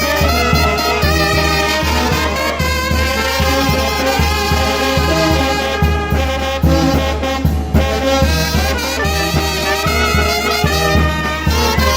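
Mexican village wind band (banda) playing a tune: brass melody lines over a steady, pulsing bass.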